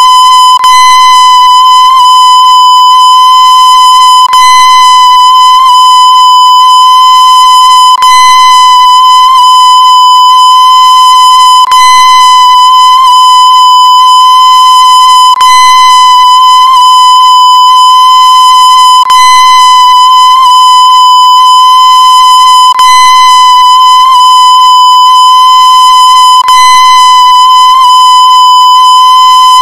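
A loud, steady electronic tone at about 1 kHz with a row of overtones, held unchanged, with a faint click about every four seconds where the loop repeats.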